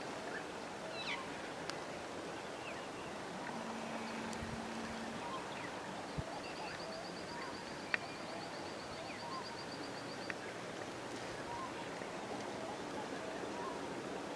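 Wild birds calling faintly over a steady outdoor hiss: scattered short chirps, and midway a rapid high trill lasting about four seconds. A single sharp click about eight seconds in.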